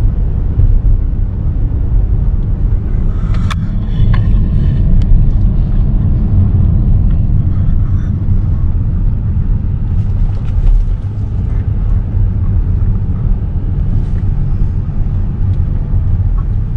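Steady low rumble of road and drivetrain noise inside a Hyundai Sonata's cabin while it is driven, on a test drive after its 6-speed automatic transmission fluid was changed. A couple of light clicks sound about three and a half to four seconds in.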